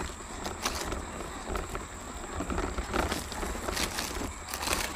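Radio-controlled rock crawler driving over loose rocks, heard from a camera mounted on the truck: tyres and chassis clattering and crunching on stones in a run of irregular clicks and knocks, over a steady high whine.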